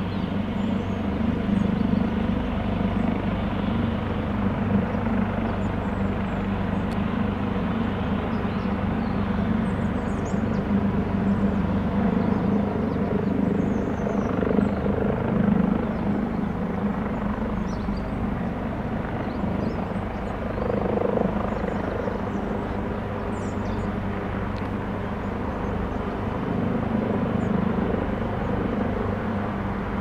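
Leonardo AW139 twin-turboshaft helicopter running at takeoff power as it lifts off the runway and moves forward in a low hover: a steady sound of rotor and turbines that swells a few times.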